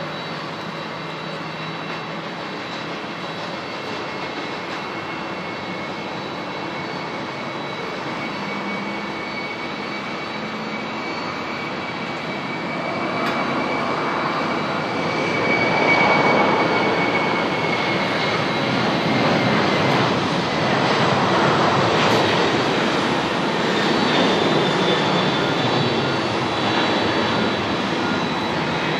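Boeing 767-300ER's twin GE CF6-80C2 turbofan engines at takeoff thrust through the takeoff roll and climb-out: steady jet noise with a high whine, growing louder about halfway through as the jet passes, with the whine then falling slightly in pitch.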